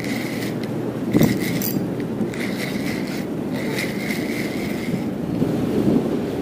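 Spinning reel being cranked to reel in a hooked fish, its gears whirring in several short spells, over a steady low rumble.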